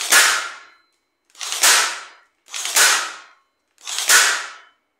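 Worcraft CNS-S20Li cordless nailer firing four times, one sharp shot roughly every second and a quarter as it drives fasteners into the board.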